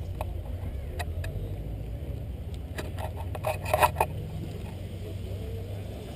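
Handling noise from a pole-mounted camera being carried: a low steady rumble, with scattered clicks and a short cluster of rattling clicks about three and a half seconds in.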